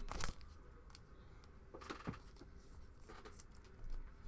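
Trading cards being handled and flipped through: faint short rustles and taps of card stock, a few times.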